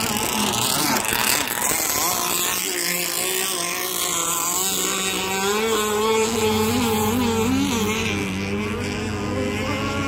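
Motorboat engine running on the water, its note steady at first, then wavering up and down in pitch in the second half.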